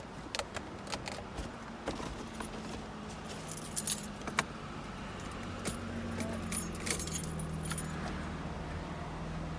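Car keys jangling and clicking against each other, loudest about four seconds in, as the key is worked into the ignition. A steady low hum from the car comes up under them from about three seconds in.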